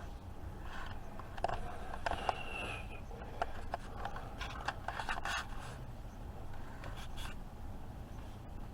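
Keurig K-Supreme Plus single-serve coffee maker starting its brew cycle after the K button is pressed: a quiet low hum with scattered light clicks and scrapes.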